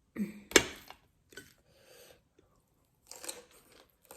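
Close-miked mouth sounds of a person eating: chewing and smacking in short separate bursts. A sharp click about half a second in is the loudest.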